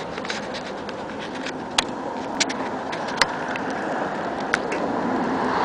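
Steady outdoor traffic noise with a handful of sharp clicks, growing a little louder near the end.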